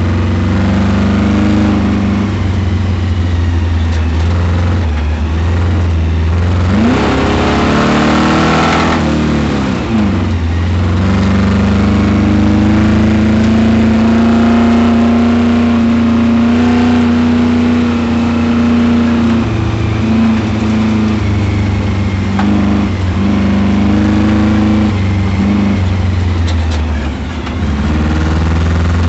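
Camaro V8 engine under hard autocross driving, holding a steady note with quick rises and falls in revs about a third of the way in and brief lifts near the end. The engine has a spun bearing, which the driver first took for a miss.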